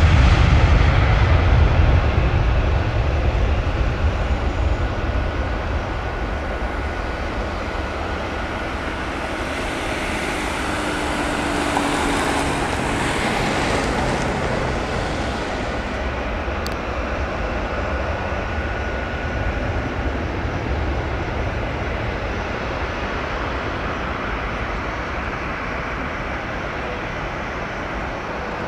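Jet airliner engines: a loud low rumble that fades over the first few seconds, then a rushing jet noise that swells again around the middle and slowly dies away.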